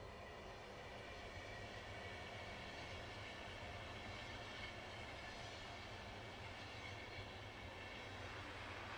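Train running on the rails: a steady rumble with faint high ringing tones above it, swelling slightly over the first couple of seconds.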